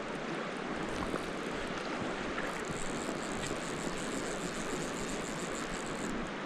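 Steady rush of a fast-flowing creek.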